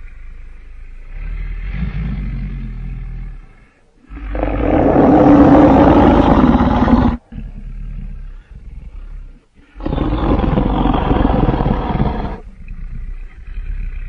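Custom-made Tyrannosaurus rex roar sound effect: two loud roars, the first about four seconds in and cut off abruptly after about three seconds, the second about ten seconds in, with a lower rumble before, between and after them.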